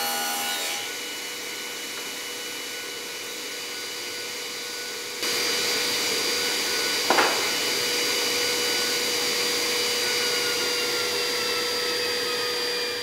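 Sliding-table panel saw finishing a rip cut through a board, then its blade spinning free with the dust extractor running: a steady whine over a hiss. There is a short knock about seven seconds in, and near the end the whine falls slightly in pitch.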